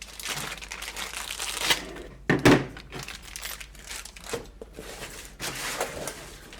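Plastic packaging crinkling and rustling as the kit's contents are handled, with a louder knock about two and a half seconds in.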